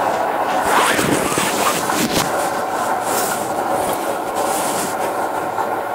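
Steady rustling and scraping noise with a few sharp clicks, typical of something rubbing over a covered microphone.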